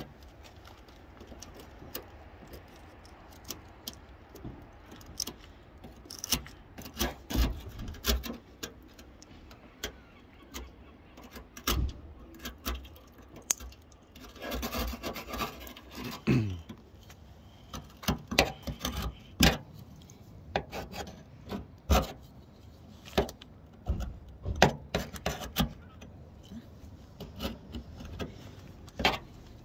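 Hand chisel scraping and chipping flaking rust and paint off a car's steel door below the window, in irregular scrapes and sharp clicks of metal on metal.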